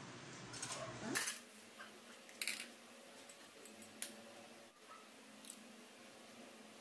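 A few separate sharp taps and clicks: a plastic bowl set down on a tiled counter and a hen's egg cracked and its shell pulled apart over the bowl, with the sharpest click about four seconds in.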